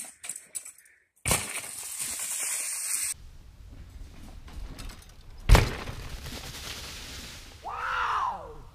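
Mountain bike on a rocky trail strewn with dry leaves: tyres crackling through the leaves, then one sharp loud knock about halfway, and a short pitched cry that rises and falls near the end.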